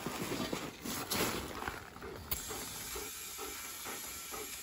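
Compressed air hissing from a portable air tank's chuck into the flat front tire of a John Deere 111 lawn tractor as it is inflated, preceded by a couple of seconds of rustling and handling noise.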